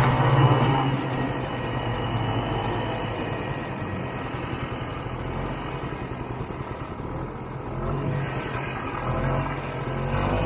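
Vintage Ski-Doo snowmobile's two-stroke engine running under way. The throttle eases off about a second in, the engine runs lower through the middle, then it picks up again near the end.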